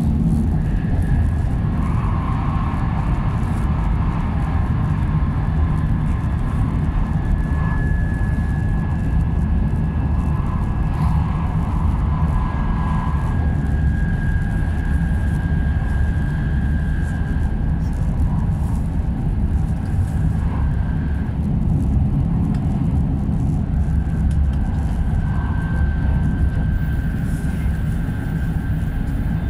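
Interior running noise of a 700 series Shinkansen at speed: a steady low rumble heard inside the passenger cabin, with a faint high whine that drops out for a few seconds past the middle.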